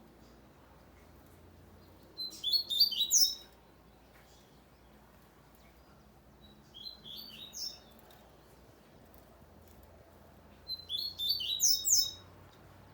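Double-collared seedeater (coleiro) singing three short phrases of quick, high-pitched notes, the middle phrase softer than the other two.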